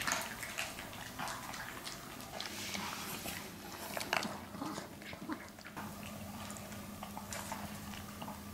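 Small dogs eating dry kibble from bowls: a run of quick crunching, chewing and clicking sounds.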